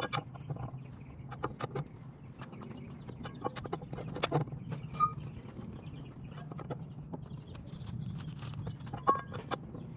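Scattered clinks and knocks of tools and brake parts being handled, the sharpest about four, five and nine seconds in, over a steady low hum.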